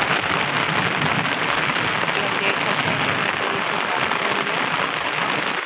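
Heavy rain falling steadily, heard from under an umbrella, with the drops hitting the umbrella and the roofs around it as an even hiss.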